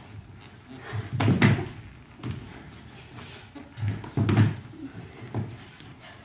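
Thuds and knocks of dancers' bodies and feet striking the floor: two heavy thumps, about a second in and about four seconds in, with lighter knocks between.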